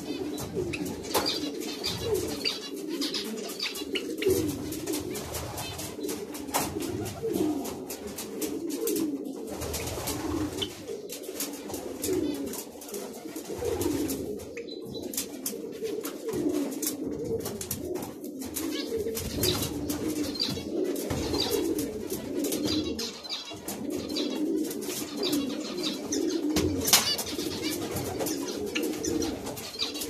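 Pigeons cooing continuously, several calls overlapping in a low wavering drone, with small finch chirps and light clicks over the top.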